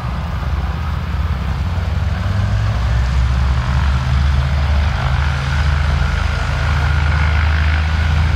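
Douglas DC-3's twin Pratt & Whitney radial engines running with propellers turning, a steady low-pitched drone that grows louder about three seconds in.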